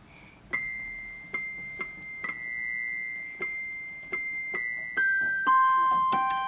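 Budget MK-2089 electronic keyboard sounding single electronic piano-like notes: one high note struck repeatedly, then a few notes stepping down in pitch near the end.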